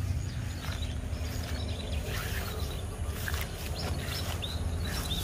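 Outdoor ambience: scattered short bird chirps over a steady low rumble.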